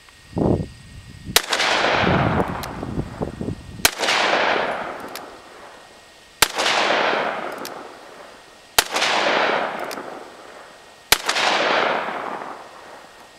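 Smith & Wesson 329PD .44 Magnum revolver firing five shots about two and a half seconds apart, 240-grain cast-bullet handloads, each crack followed by a long echo that fades out. A short low thud comes just before the first shot.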